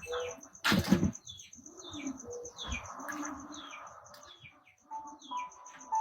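A bird chirping repeatedly, short falling notes about twice a second, over a fast, even, high pulsing. A single loud knock comes about a second in.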